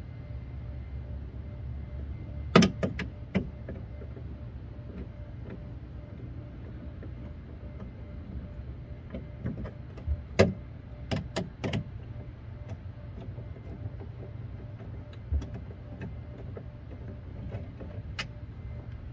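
Sharp metal clicks and clinks of a hand tool working on the bare inner steel frame of a car door, in a few quick clusters about three seconds in and again about ten to twelve seconds in, with one more near the end, over a steady low hum.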